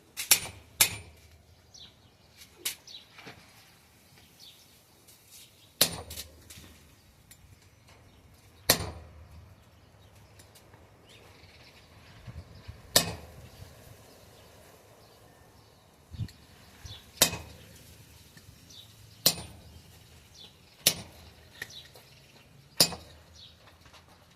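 Hammer blows on steel: about a dozen sharp strikes, spaced irregularly from under a second to several seconds apart, as a hot cut is driven into mild steel flat stock held down by a freshly forged holdfast.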